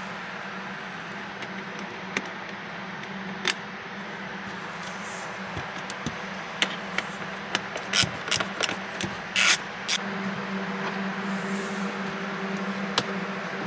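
Scattered metallic clicks and clinks of a 10 mm socket wrench and bolts being worked, with a dense run of clicks about seven to nine seconds in, over a steady low hum.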